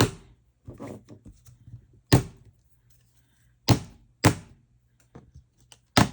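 Five sharp thunks on a desk, spaced unevenly, two of them close together in the middle: a metal cutting die being knocked against the tabletop to free paper pieces stuck in its intricate design.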